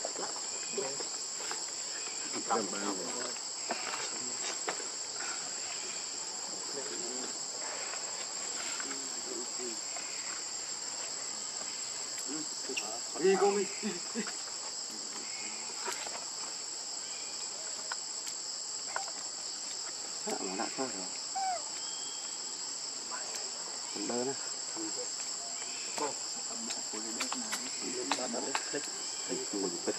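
A steady, high-pitched chorus of insects droning without a break. Short, lower sounds come and go a few times over it, the loudest about halfway through.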